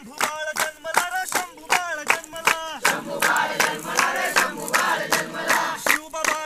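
A group of people singing together in unison, clapping hands in a steady rhythm.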